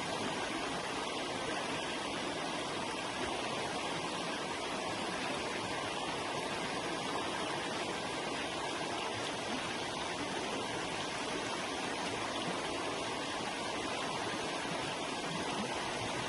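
Forest river flowing over rocks: a steady, even rushing of water with fine splashing and no breaks.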